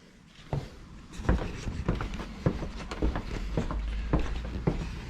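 A series of short, light knocks, about two a second, over a steady low rumble that sets in about a second in.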